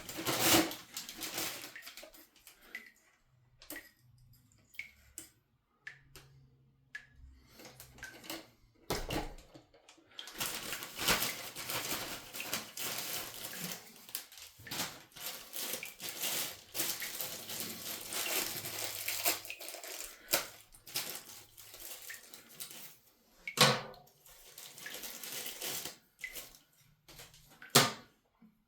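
Hands fitting a new plastic toilet fill valve into a toilet tank that still holds some water: intermittent splashing and rustling, with a few sharp plastic clicks and knocks.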